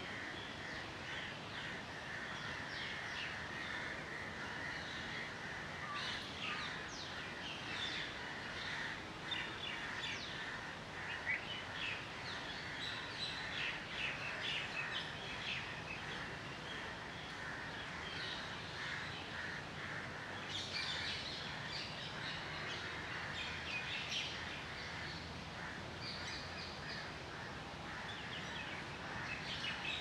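Birds chirping and calling in the trees, many short calls overlapping throughout over a steady background hiss.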